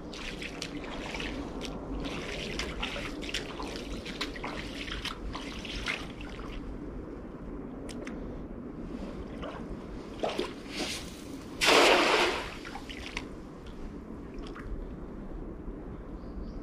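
Water dripping and trickling from a wet cast net and around the wading man's boots in shallow water. About twelve seconds in comes one short, loud splash as the cast net lands on the water.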